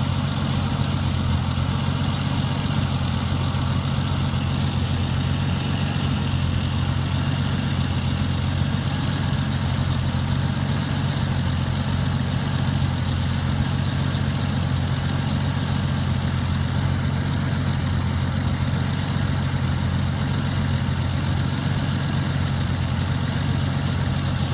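Renix Jeep Cherokee engine idling steadily while its cooling system is burped of trapped air.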